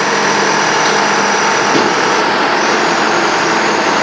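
An engine running steadily, a constant drone that neither rises nor falls.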